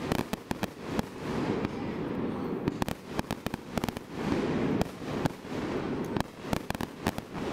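Fireworks display: an irregular, rapid string of sharp bangs and crackling pops from aerial shells bursting, over a steady low rumble.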